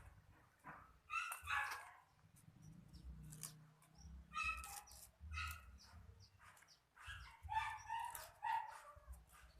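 A dog barking in three short bouts.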